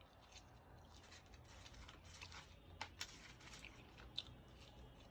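Faint eating sounds: chewing with soft, irregular mouth clicks, and two or three sharper clicks around the middle.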